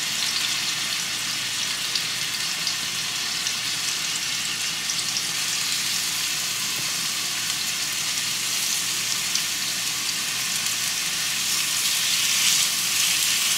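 Marinated chicken frying in an oiled pan, a steady sizzle with fine crackle that gets a little louder near the end.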